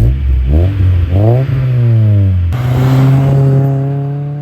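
An Acura Integra's four-cylinder engine revving through an aftermarket catback exhaust. Two quick rev blips rise and fall away, then after a cut the engine is held steady at high revs, sagging slightly.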